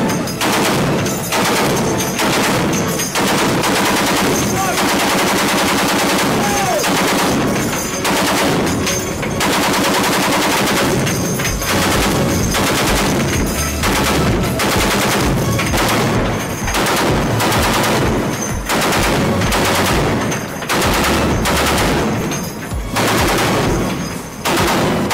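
M2 Browning .50-calibre heavy machine gun firing long sustained bursts, broken every few seconds by brief pauses of under a second.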